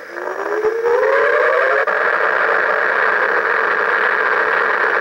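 Electronic sound effect from the Star Trek Borg Bank's small built-in speaker: a whine rising over the first couple of seconds, then a steady hissing hum, while its motorised arm moves the Enterprise-D model.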